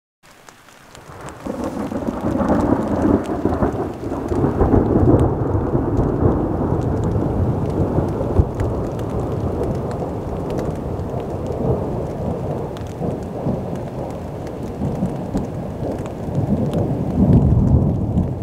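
Long rolling thunder that builds up over the first couple of seconds, swells loudest about two to five seconds in and again near the end, with rain falling.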